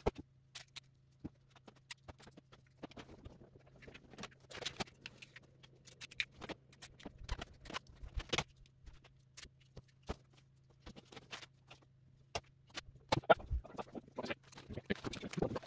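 Irregular clicks, taps and light clanks of hand tools and metal motorcycle parts being handled and fitted during assembly, over a faint steady low hum.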